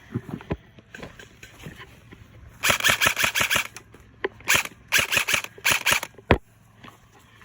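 Airsoft gun firing three rapid full-auto bursts, each a fast, even string of sharp cracks: a long one a few seconds in, a short one, then another long one. A single dull thump follows near the end.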